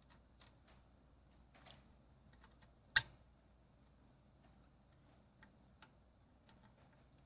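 Scattered light clicks and taps from small hardware being handled, with one sharp click about three seconds in.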